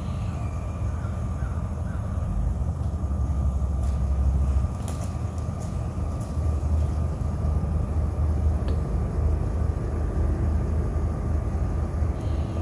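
Pickup truck engine idling, a steady low rumble, with a few short, faint high sounds over it about four to six seconds in.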